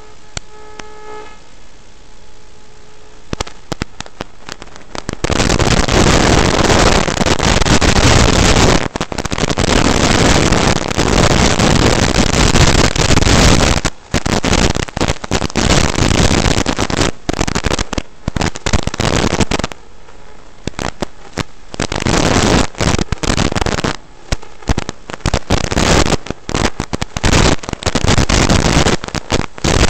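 FPV racing quadcopter in flight, heard through its own onboard audio: a loud rushing noise that starts about five seconds in and cuts out and back in abruptly many times. Before that there is a quieter hum with a few faint steady tones.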